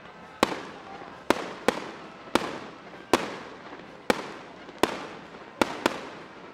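Aerial firework shells bursting overhead in quick succession: about nine sharp bangs, some less than half a second apart, each trailing off in an echo.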